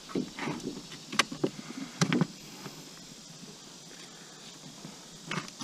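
Paperback books handled on the wooden shelf of a little free library box: a few short knocks and rustles as they are pulled and slid against each other in the first two seconds, then quieter, with a couple of faint clicks near the end.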